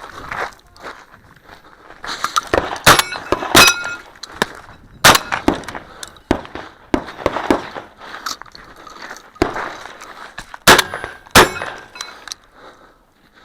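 Shotgun shots fired in a series of single loud reports, spaced irregularly with gaps of a few seconds, some followed by a short metallic ring of struck steel targets.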